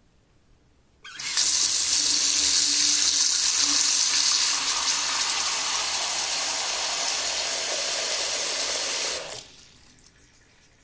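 Bathroom faucet turned on about a second in, water running steadily into the sink with a hissing splash, then shut off after about eight seconds.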